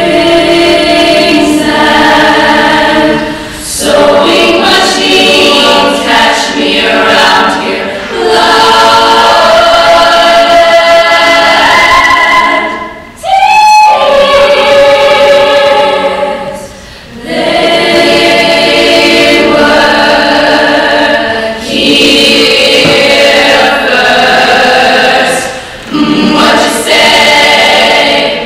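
Women's a cappella group singing in sustained close harmony, with no instruments, in long phrases separated by brief breaks. About halfway through, a single high rising slide stands out before the chords resume.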